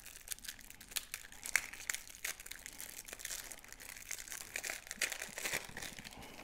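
Plastic wrapping crinkling and crackling irregularly as it is pulled off a deck of cards.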